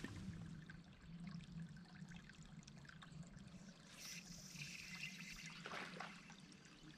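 Faint trickling and lapping of water against a bass boat's hull.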